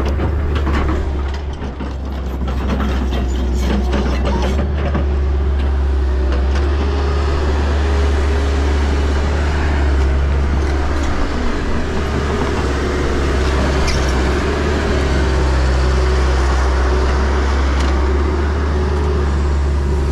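Heavy diesel excavator engine running steadily under load, with a spell of clattering knocks in the first few seconds.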